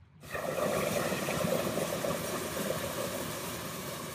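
Hot air balloon's propane burner firing in one long, steady blast that starts suddenly a moment in.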